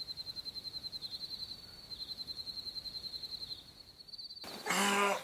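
Crickets chirping in a high, rapid, pulsing trill that pauses briefly now and then. Near the end comes a short, loud breathy sound.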